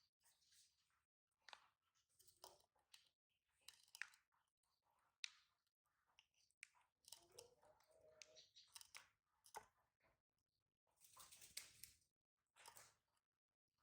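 Faint chewing: scattered small crunches and mouth clicks from a baby monkey eating, with a brief squeaky sound about seven seconds in.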